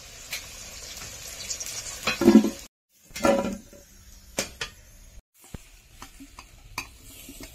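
Potato pieces sizzling in hot oil in a kadai while a metal spatula scrapes and clinks against the pan as they are lifted out. The sizzle drops away about three seconds in, leaving scattered clinks of metal utensils.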